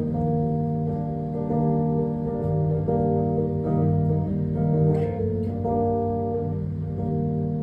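Live instrumental introduction to a song: held chords changing every second or two, with no singing yet.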